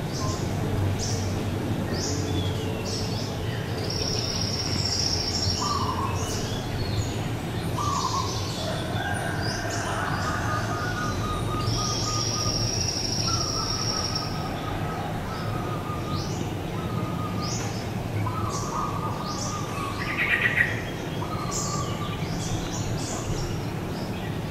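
Birds chirping and calling outdoors: many short high chirps throughout, two long steady high-pitched notes, and a brief louder call about twenty seconds in, over a steady low background hum.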